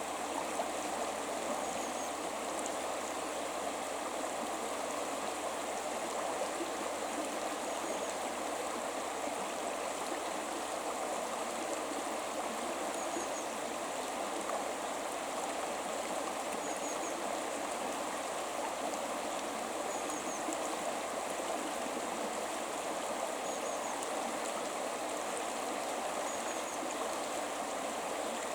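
A river flowing steadily, an even rush of running water. Faint short high chirps recur every few seconds.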